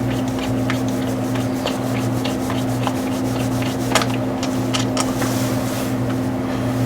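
Socket ratchet clicking in irregular runs as a 10 mm bolt on a BMW E46 thermostat housing is backed out, with rubbing of tool on metal, over a steady low hum.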